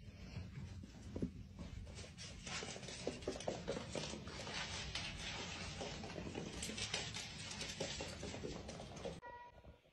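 Faint, irregular patter of small taps and scratches over a steady hiss, which drops away abruptly about nine seconds in.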